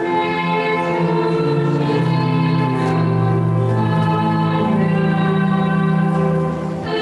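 A choir singing a slow hymn in long held chords. It pauses briefly near the end for a new phrase.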